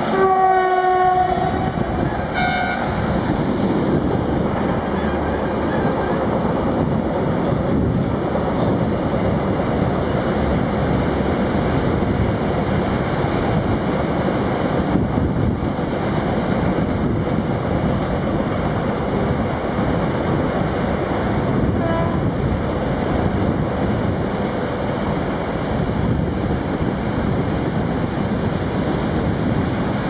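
WAG-5 electric locomotive sounding its horn: one long blast at the start and a short one about two seconds later. Then the steady rumble of a long container freight train running along the rails.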